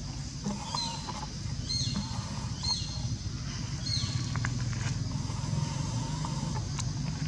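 Outdoor ambience: a low steady hum under four short high calls about a second apart, each falling in pitch, in the first half, with a few light clicks later on.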